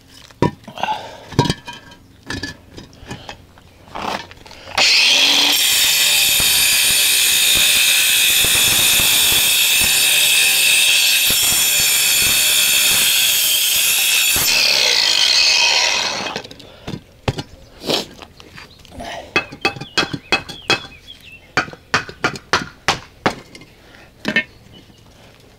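Angle grinder with a masonry cutting disc slicing through a hollow concrete block: a loud, steady high whine for about ten seconds, winding down as it stops. Before and after the cut come short sharp knocks and scraping on the block.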